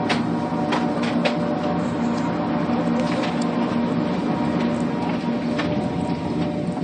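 Gondola lift machinery humming steadily, with several steady tones held throughout. A few sharp clicks come in the first second and again about three seconds in.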